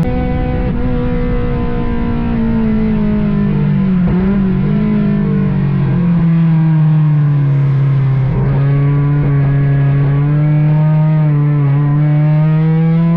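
Ford Courier race car's engine heard from inside the cockpit, its pitch falling slowly for most of the first eight seconds with short breaks around four and eight seconds in, then climbing steadily as it accelerates again.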